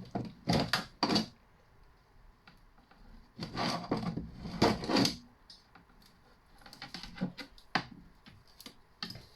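Copper cable being stripped by hand: sharp clicks and scraping of the blade and plastic insulation against the wire, in three short bouts with quiet gaps between.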